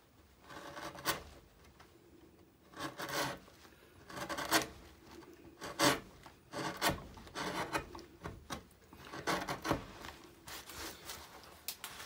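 Hand-pushed carving gouge paring shavings from alder wood, a series of short scraping cuts, roughly one a second.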